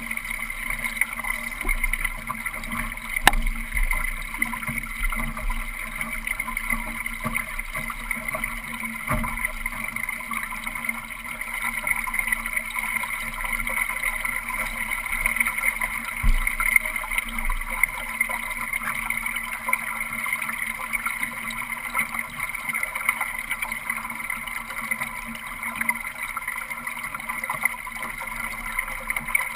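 Steady rush and gurgle of water along the hull of a Solo sailing dinghy under way, heard from a camera fixed in the cockpit, with a couple of short knocks from the boat.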